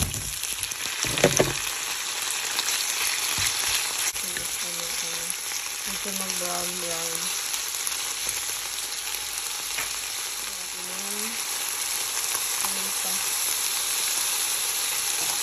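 Raw chicken pieces landing in a hot oiled frying pan with onions and garlic, with a few heavy thuds about a second in, then sizzling steadily as they are stirred with a wooden spatula.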